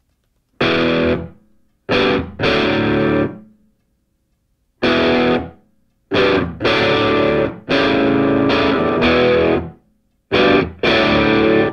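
Background music: distorted electric guitar chords played in short, abrupt stop-start phrases, each held for under a second to about two seconds and separated by silent gaps.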